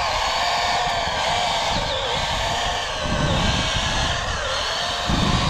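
Steady whine of a radio-controlled model's small electric motor and gearing, with small dips in pitch, over a rough low rumble that swells twice.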